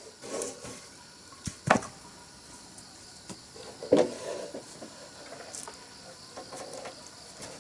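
A few sharp knocks and clatters of wooden timbers being handled, the two loudest about a second and a half apart near the start and middle. Insects chirr steadily behind them.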